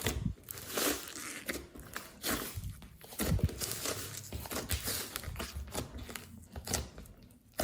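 Glossy slime being squeezed and stretched by hand, with irregular crackling and popping.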